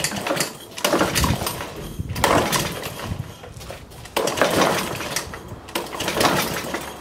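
Lawnmower SV150 engine being pull-started: the recoil starter cord is yanked several times in quick succession, each pull cranking the engine over briefly, and the engine does not run.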